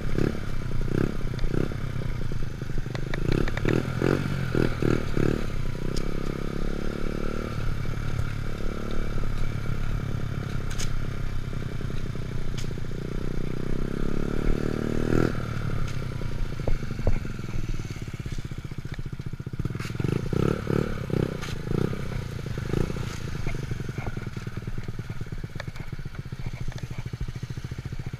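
Honda Monkey Z50's small single-cylinder four-stroke engine running under load while being ridden. The revs climb twice, dropping back after each rise, over a background of wind and rattling.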